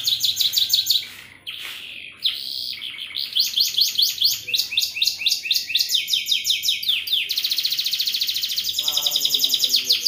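Domestic canary singing in fast trills of repeated high notes, changing pace from one trill to the next.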